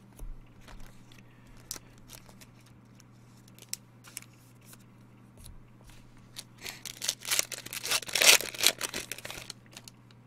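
A foil trading-card pack wrapper being torn open and crinkled. Light clicks and rustles come first, then a dense stretch of crinkling and tearing from about six and a half seconds in that lasts about three seconds. A faint low steady hum runs underneath.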